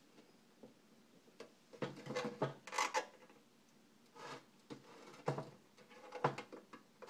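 Hand prying at the sheet-metal case of a Delco car radio, trying to pop its end cover off: faint scraping and rubbing with a few small metal clicks, busiest about two to three seconds in.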